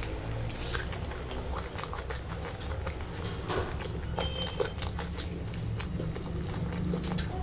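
Close-miked chewing and mouth sounds of someone eating chicken curry with rice, with many small wet clicks and smacks.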